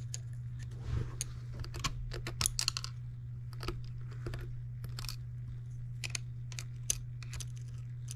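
Irregular small metallic clicks and taps of a screwdriver working tiny stainless steel screws out of a miniature engine's governor linkage, with the screws clinking. A steady low hum runs underneath.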